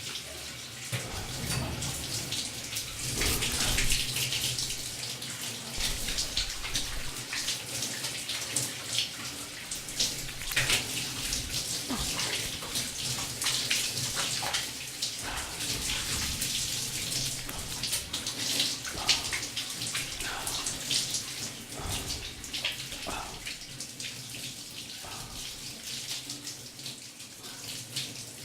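A shower running, its spray hissing steadily, broken by irregular splashes and spatter as a person moves and washes under it.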